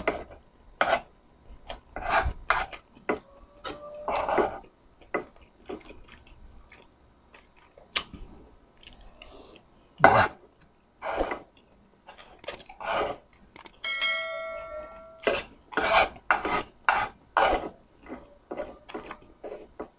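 Metal spoon and fork scraping and tapping across a wooden plate, gathering up the last scraps of food in a string of short scrapes. About 14 seconds in there is a brief metallic ring.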